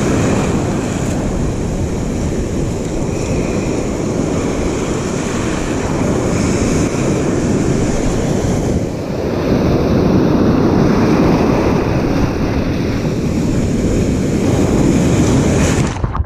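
Ocean surf breaking and churning around a wader, with wind buffeting the microphone: a loud, steady rush that swells about nine seconds in. Near the end a wave washes over the camera, and the sound cuts off suddenly to a muffled hush.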